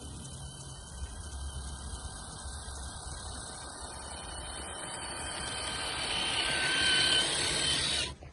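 Traxxas TRX-4 Sport RC truck's brushed electric motor and drivetrain whining, growing louder over several seconds, then cutting off abruptly near the end.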